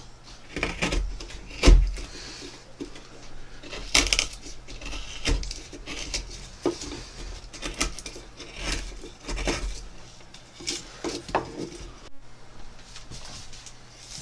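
Hand gouge cutting into the bowl of a cedar spoon: a series of short, irregular scraping and crunching strokes as the blade is pushed through tough cedar. The strokes are quieter after about twelve seconds.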